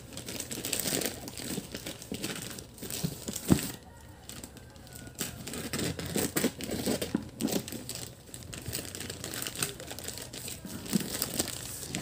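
Plastic courier mailer bag crinkling and rustling as it is handled and cut open with scissors, with one sharp knock a few seconds in.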